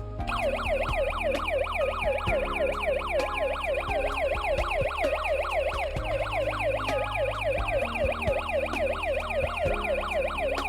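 Security alarm siren of a D3D-D9 home alarm system sounding continuously as a fast, repeated rising whoop. It has been set off by the door/window sensor during a test of the system.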